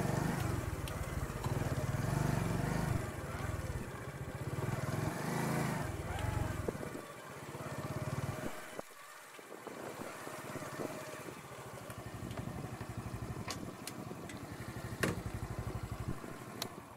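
Small motorcycle engine running as the bike rides along. About halfway through it drops to a quieter, steady idle, then cuts out near the end, with a sharp click just before.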